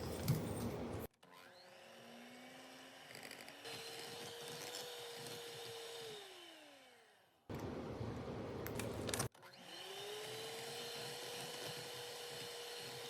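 Electric mixer motor speeding up to a steady whine and then slowing down, twice, with short bursts of louder kitchen noise between.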